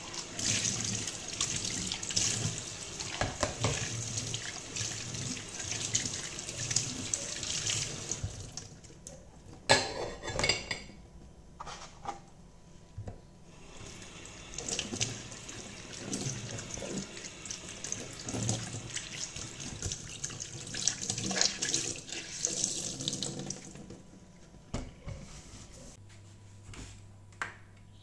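Kitchen tap running into the sink as a glass is rinsed and dishes are washed under it. The water stops about a third of the way through, with a few loud clinks and knocks of dishes. It then runs again for about ten seconds, and a few light clicks and knocks follow near the end.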